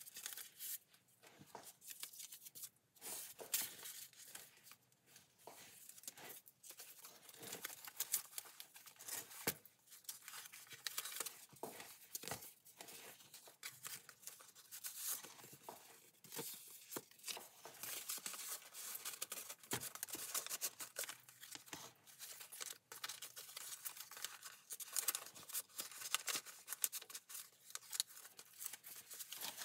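Paper rustling and crinkling: journal pages are turned and a printed book-page envelope is handled and folded, making many short rustles and light clicks throughout.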